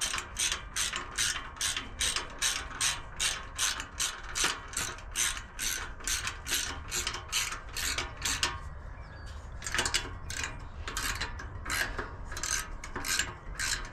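Hand ratchet wrench clicking in a steady rhythm, about three clicks a second, with a short pause about nine seconds in before the clicking resumes less evenly.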